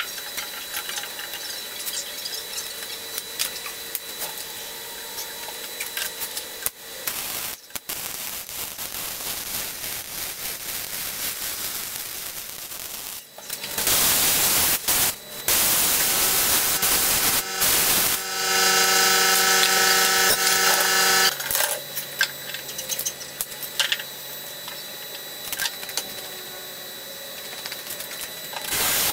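Plasma cutter cutting through the steel hitch tongue: a loud, steady hiss of the arc and air for about eight seconds, starting about halfway through, with a pitched whine over the hiss in its last few seconds. Quieter knocks and clatter of the work being handled come before and after it.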